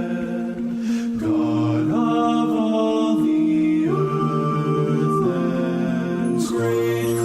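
Slow worship song music, held chords that change every second or two.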